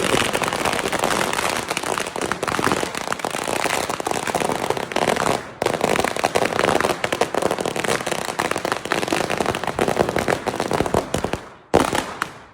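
A string of firecrackers going off in a dense, rapid crackle of bangs, with a brief break about five and a half seconds in. It dies away near the end, with one last sharp burst.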